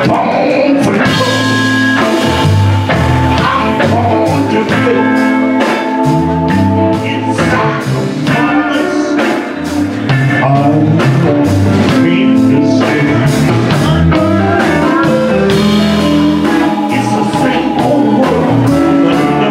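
Live blues band playing, led by electric guitar, with keyboard and a drum kit keeping a steady beat.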